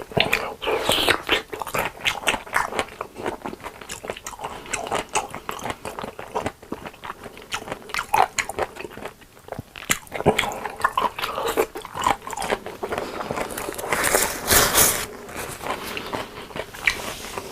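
Close-miked eating sounds from a meal of chili tomato spaghetti and breaded cheese sticks: repeated bites and chewing with some crunching, and a louder noisy stretch about 14 seconds in.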